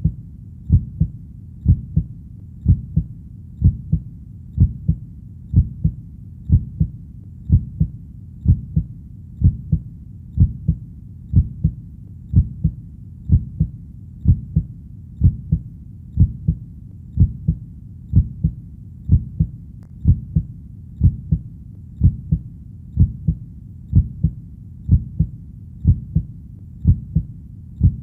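Slow, steady heartbeat at about one beat a second, each beat a low double thump (lub-dub), over a faint low background hum.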